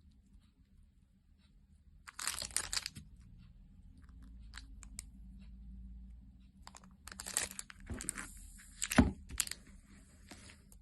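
Packaging being opened by hand: bursts of crinkling and tearing about two seconds in and again from about seven seconds, with a sharp knock near nine seconds.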